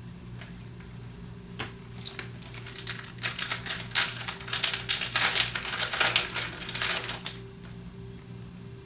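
Stiff Topps Chrome baseball cards being handled and flicked through one by one, a rapid run of sharp clicking from about three seconds in to past seven seconds, with a few single clicks before it.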